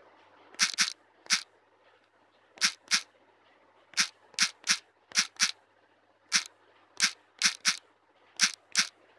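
Sharp key-press clicks from a smartphone's on-screen keyboard as text is typed, about sixteen taps coming in uneven groups of one to three.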